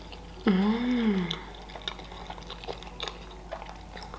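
A woman hums an appreciative 'mmm' with her mouth full, pitch rising and falling for about a second. Then come soft chewing and small wet mouth clicks as sushi rolls are eaten.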